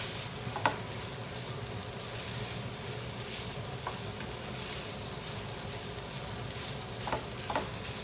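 A wooden spatula stirring and scraping cooked rice into a tomato mixture in a nonstick skillet over a gas burner, with a steady sizzle underneath. The spatula knocks sharply against the pan a few times: the loudest tap comes about half a second in, and two more come near the end.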